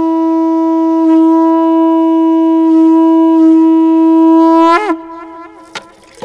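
Conch shell (shankh) blown in one long, steady note that wavers and breaks off about five seconds in. A few faint clicks follow.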